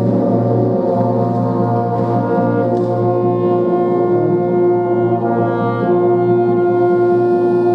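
Music of sustained held chords in a brass-like sound, with a strong long note coming in about three and a half seconds in.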